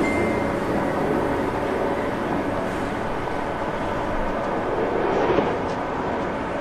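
Passenger train running at speed, heard from inside the carriage: a steady rumble and rush of wheels and air, with a faint steady whine.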